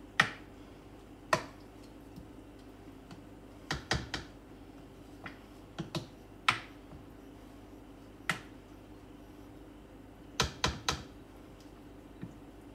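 A cooking utensil clicking and knocking against a saucepan as food is stirred while it heats, about a dozen irregular knocks, some in quick pairs, over a faint steady hum.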